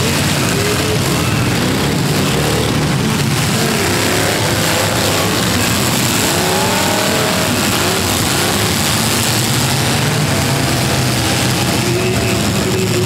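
Several V8 demolition derby cars' engines running and revving together, their pitches rising and falling over one another.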